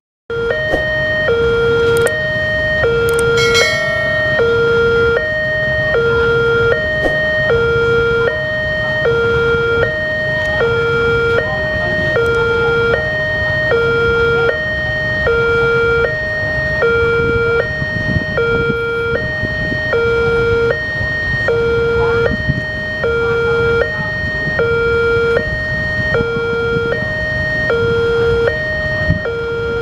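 Railway level-crossing warning alarm sounding a two-tone hi-lo electronic siren, switching pitch about every 0.7 seconds, the signal that a train is approaching and the barrier is down. Motorcycle and car engines idle underneath.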